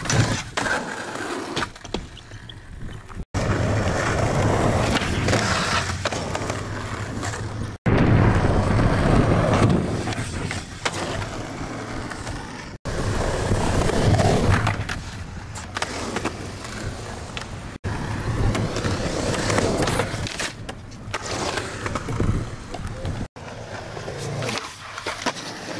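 Skateboard wheels rolling over concrete, with the board sliding along a ledge and popping and landing, in short clips that break off abruptly every few seconds.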